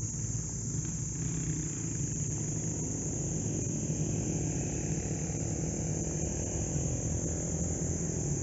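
An engine running steadily at idle, as of a nearby vehicle, with a constant high-pitched hiss over it.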